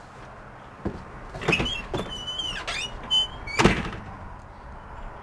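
A wooden house door clicking open, its hinges squeaking in wavering, gliding tones for a couple of seconds, then shutting with a loud bang.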